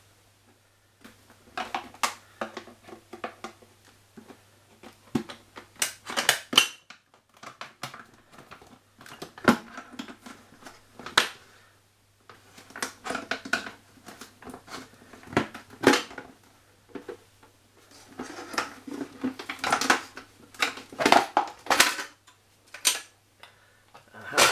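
A screwdriver working on a washing machine door's plastic parts: irregular clicks, scrapes and creaks of plastic being prised and worked loose, in bursts with short pauses. A faint steady low hum runs underneath much of it.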